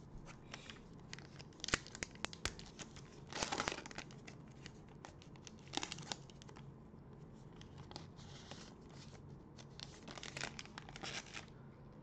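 A trading-card pack wrapper being torn open and crinkled: scattered sharp crackles, with a longer rip about three and a half seconds in and more crinkling near the end.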